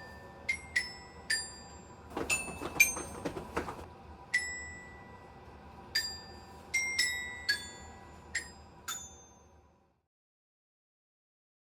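High, bell-like metal notes struck one at a time, each ringing and fading, in the manner of a glockenspiel or chimes. A short rattling, jingling stretch comes between about two and four seconds in. The notes stop and it goes silent for the last couple of seconds.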